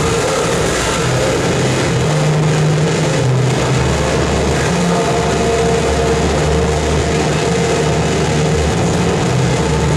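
Continuous loud harsh noise from electronic effects pedals and a mixer: a dense wall of distorted static across the whole range, over low droning tones that shift in steps.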